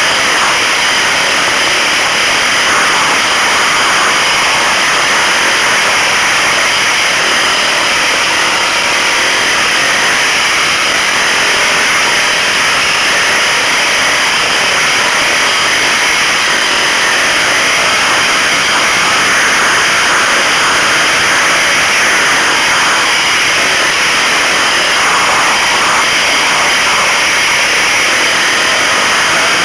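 Trail motorcycle running along a dirt track, its engine and the wind on the onboard microphone blending into a loud, steady rushing noise.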